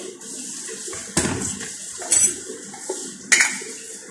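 Metal fork beating eggs with chopped onion and garlic in a ceramic bowl, striking the bowl with about three sharp clinks, over a steady hiss of a running tap.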